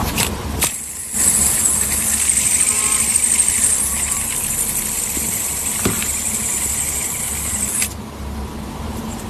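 Metal fidget spinner whirring on its bearing after a flick: a high, steady whir over a low rumble, which cuts off suddenly near the end.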